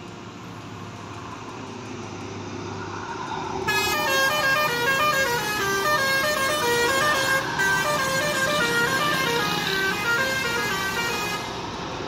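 A bus engine grows louder as it approaches. About four seconds in, a multi-tone telolet horn plays a quick stepped melody for about seven seconds, then cuts off.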